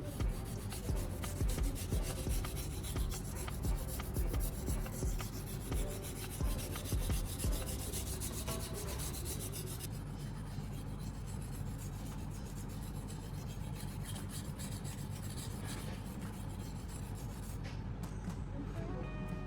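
Steel knife blade stroked back and forth across a fine 3000-grit whetstone coated in baking-soda paste, making a gritty scraping rub. For the first several seconds the strokes come about twice a second, then they settle into a steadier, more continuous rubbing.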